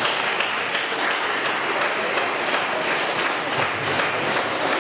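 Audience applauding steadily, welcoming a speaker who has just been called up to the microphone.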